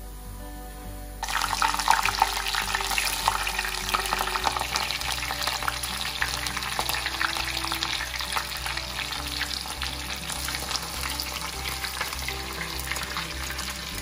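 Sliced onions and green chillies, held in a wire spider strainer, sizzling and crackling in hot oil in a cast-iron pan. The sizzle starts suddenly about a second in and then keeps up steadily, with soft background music under it.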